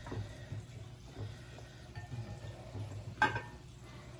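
Faint wet, sticky squishing of chicken wings being dipped and turned in a bowl of hot sauce by gloved hands. A short vocal sound comes about three seconds in.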